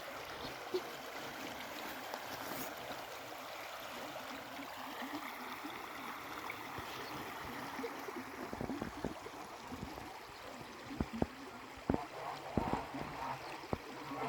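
Small river flowing, a steady rush of running water. In the second half, a run of irregular low thumps and knocks sounds over it.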